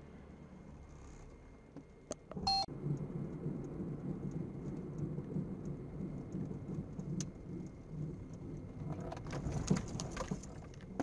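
Low, steady rumble of a car's engine and tyres heard from inside the cabin, picked up by a dashcam. It gets louder after a short electronic beep about two and a half seconds in, and a few sharp clicks come near the end.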